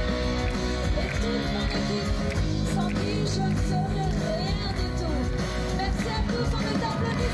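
Pop-rock music with a singing voice, at a steady loud level.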